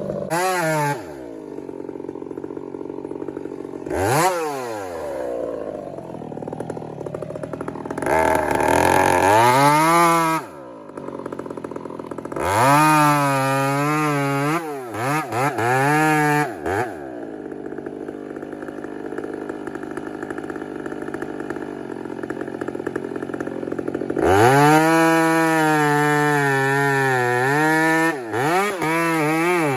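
Two-stroke chainsaw revved to full throttle about five times, each run lasting a second to several seconds, dropping back to idle in between while bucking and bore-cutting large rotten cedar.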